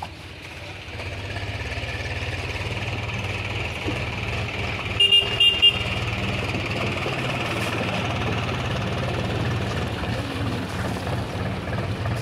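A vehicle engine running steadily, with its horn tooted four quick times about five seconds in.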